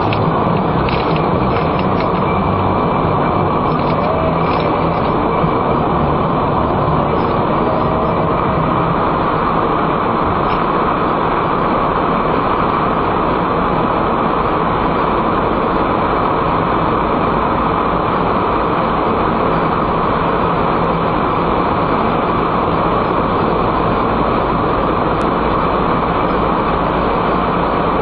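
Steady tyre and engine noise heard inside a car's cabin as it drives along a motorway and into a road tunnel.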